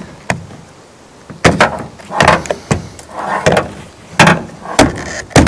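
Irregular sharp clicks and knocks, about seven or eight, from the plastic guard and head of a Milwaukee M18 Fuel string trimmer attachment being handled and turned.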